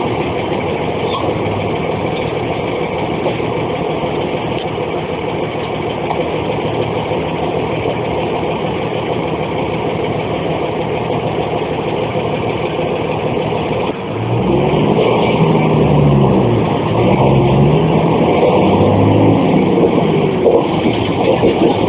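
A bus's diesel engine heard from on board, running steadily at first. About 14 s in it gets suddenly louder, and its pitch rises and falls several times as the bus accelerates.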